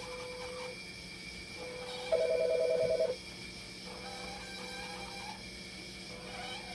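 Dialysis machine alarm beeping: a steady single tone sounds for about a second at a time with gaps between. About two seconds in, a louder rapid two-note trill lasts about a second.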